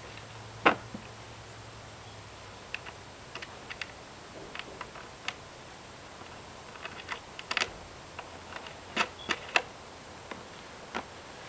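Small, irregular clicks and ticks as a washer and wing nut are fitted and spun by hand onto a brass bolt through a wooden chair leg. There is one sharper click about a second in and a flurry of clicks near the end.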